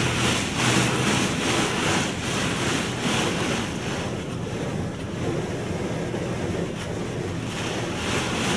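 Spot-free rinse water from a D&S 5000 in-bay automatic car wash spraying onto the car, heard from inside the cabin as a dense hiss that swells and fades in pulses as the spray sweeps over, over a steady low hum.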